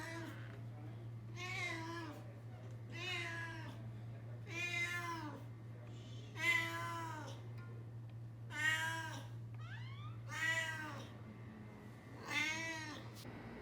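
Cat meowing repeatedly, about seven drawn-out meows each one to two seconds apart, over a steady low hum that stops near the end.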